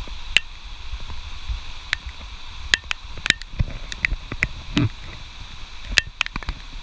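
Rain falling steadily, with irregular sharp taps of raindrops hitting the camera over a low rumble.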